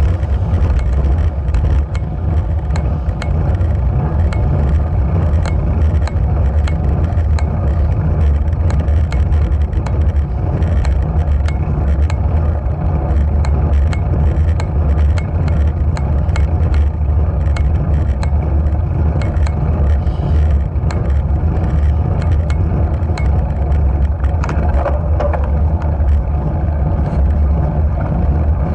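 Wind buffeting the microphone of a camera mounted on a moving bicycle, a steady loud low rumble, with small sharp clicks scattered throughout.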